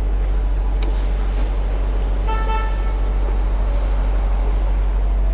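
Steady low rumble of an idling semi-truck diesel engine, with a short horn toot lasting about half a second, a little over two seconds in.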